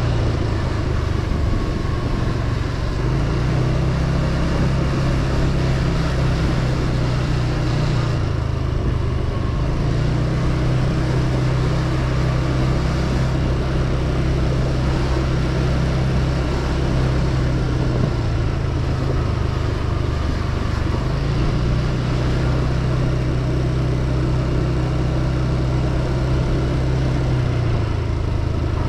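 Motorbike engine running under way, its pitch stepping up and down a few times as engine speed changes, over a steady rush of wind and road noise.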